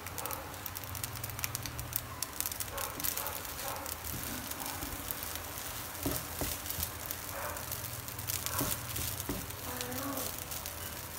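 Fried rice crackling and sizzling in a nonstick frying pan while a wooden spatula stirs and turns it, with a steady patter of small clicks throughout.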